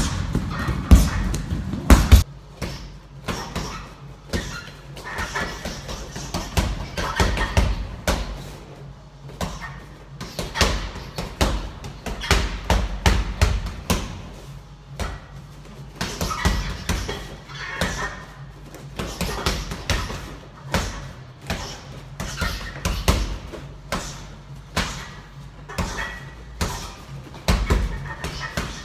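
Boxing gloves punching a Fairtex heavy bag: irregular runs of thuds and slaps in quick combinations, with short pauses between them.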